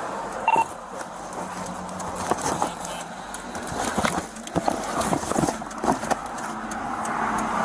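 Gloved hands handling tape-wrapped packages close to a body-worn camera's microphone: a run of crinkles, taps and rustles. There is a short tone about half a second in.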